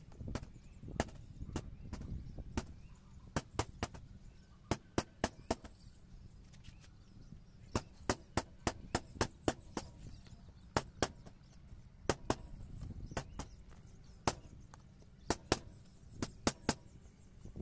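Irregular sharp knocks, often in quick clusters of two to four, over a low rumble: a tractor's air filter element being knocked against the tyre to shake out the dust.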